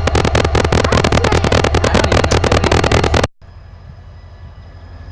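Freight locomotive's diesel engine heard close on a poor microphone, loud and crackly. About three seconds in it cuts off abruptly to a much quieter, steady low rumble.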